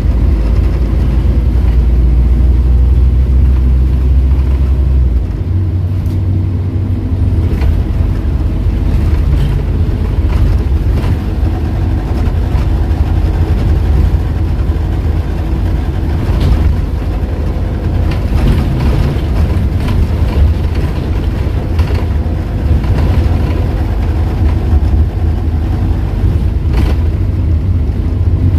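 Interior sound of a Scania N230UD double-decker bus on the move: its five-cylinder diesel engine and driveline running steadily with a deep rumble. The engine note shifts down about five seconds in, and brief body rattles come now and then.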